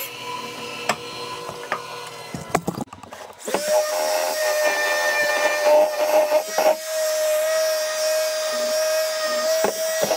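Bandsaw cutting a cherry blank, its steady running tone stopping a little over two seconds in. After a short break, a Milwaukee random orbital sander runs at a steady pitch, louder, as it sands the edge of the blank.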